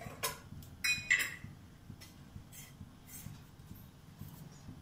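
Metal kitchen utensils and cookware clinking: a few sharp clinks with a short metallic ring about a second in, then lighter taps, over a faint low hum.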